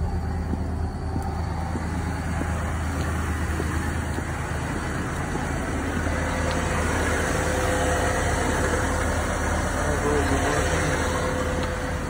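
1991 Ford F-150's 4.9-litre inline-six engine idling steadily, a low even hum.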